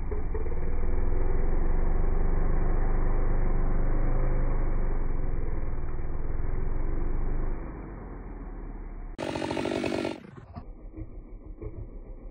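Husqvarna 592 XP two-stroke chainsaw cutting into the trunk of a large white oak at full throttle. About seven and a half seconds in, the cut eases off, and a short loud burst of sound follows. Then the saw settles to an idle with an even putter.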